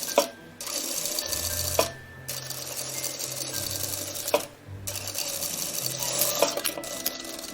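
Sewing machine stitching fabric in runs, broken by a few sharp clicks and a couple of brief stops.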